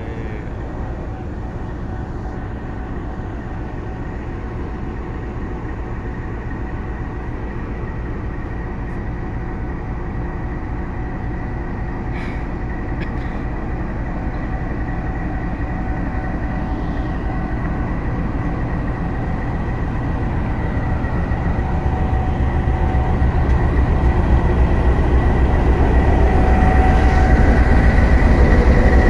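Diesel locomotive running as it rolls slowly up to and past the listener, a steady low engine rumble with a thin whine above it. It grows gradually louder and is loudest over the last several seconds as the locomotive comes alongside.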